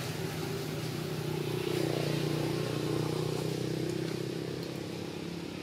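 A steady engine hum, such as a motor vehicle running, which swells about two seconds in and eases off near the end.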